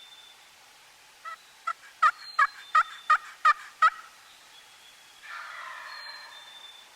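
Wild turkey sounds: a series of about eight yelps at about three a second, growing louder, followed about five seconds in by a rattling gobble lasting about a second. A small songbird whistles faintly a couple of times.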